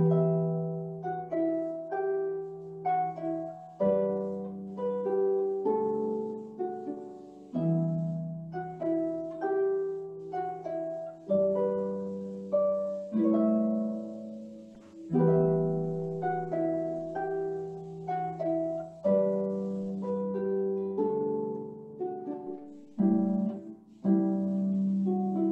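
Solo harp playing: a low bass note about every four seconds rings under flowing, broken chords of plucked higher notes. The playing starts with a loud first chord after near quiet.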